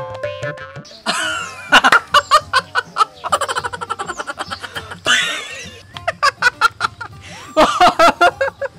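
A person laughing in several fits of quick, repeated bursts, over background music.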